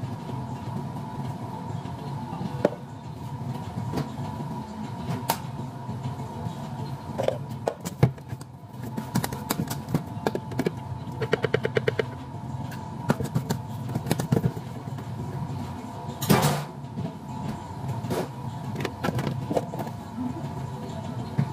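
Plastic cups, a jar and utensils clicking and knocking on a counter during drink preparation, over a steady background hum, with a brief rapid rattle partway through and a louder scrape-like burst a few seconds later.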